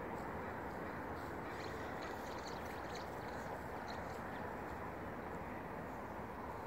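Steady outdoor background noise, with a few faint short high chirps about two to four seconds in.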